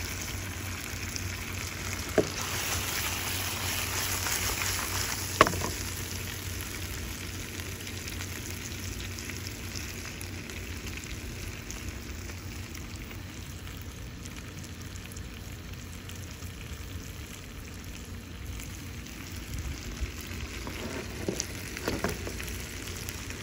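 Whole hassa (armored catfish) frying in curry paste in a pot, a steady sizzle that is louder in the first few seconds and then settles lower. Two sharp knocks about two and five seconds in, and a few softer knocks near the end.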